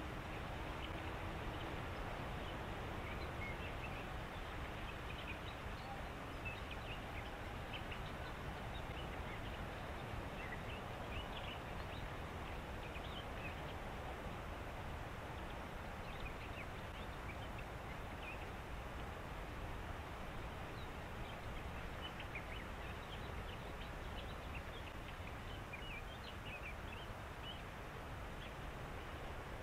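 Reedbed ambience: a steady background hiss with many short, high chirps and calls from birds scattered throughout.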